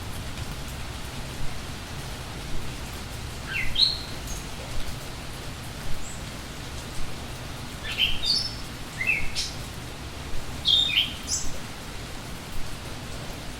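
Steady rain with songbirds chirping over it in short, quick high phrases, three bursts of song about 4, 8–9 and 11 seconds in.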